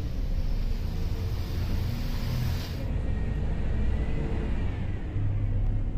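Volvo Caio Procity city bus running along the street, heard as a steady low engine and road rumble. A hiss over the rumble stops abruptly about three seconds in, and the low engine hum grows a little stronger just past five seconds.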